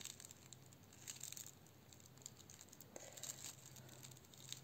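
Faint crinkling in several short patches from a crinkle insert cut from a plastic baking sleeve, sealed inside a crocheted toy wing and rustling as the wing is turned and stitched.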